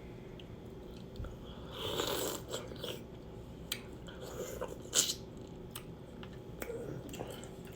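A person chewing and biting into seafood-boil food, with wet mouth sounds and a few sharp clicks at irregular moments, the sharpest about five seconds in.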